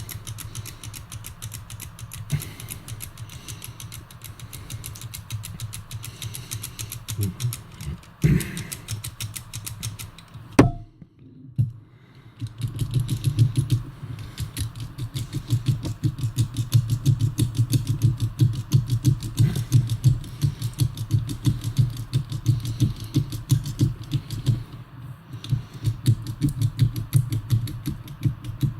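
Foil-wrapped dimple key being worked back and forth with vise grips in a Godrej Duralock discus padlock: a rapid run of small clicks and creaks as the pins press their impressions into the foil. It breaks off briefly with a sharp click about ten seconds in, then resumes with a heavier, regular rhythm.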